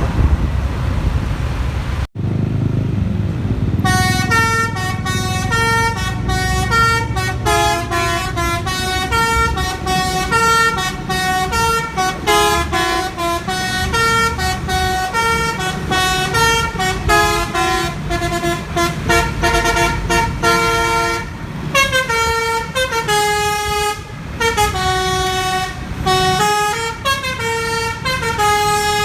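Bus basuri horn playing a fast melody of steady pitched notes, changing several times a second, over the bus engine's rumble. The tune starts about four seconds in, after a brief dropout.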